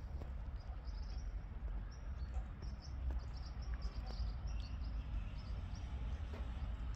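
Small birds chirping in many short, high calls, over a steady low rumble of background noise.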